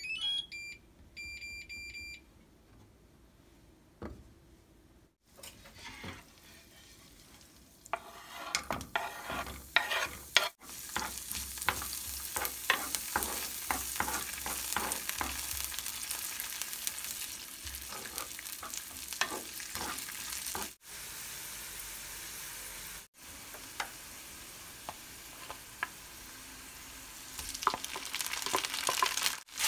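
Butter and sliced garlic sizzling in a nonstick frying pan, stirred with a wooden spoon that knocks and scrapes against the pan, after a short rising tone and a few beeps at the start from the induction cooktop's touch controls. Near the end, cooked rice is scraped from a plastic container into the pan.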